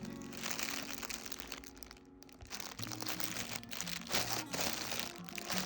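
Packaging crinkling and rustling in handling, as a parcel is unboxed, over soft background music with low held notes.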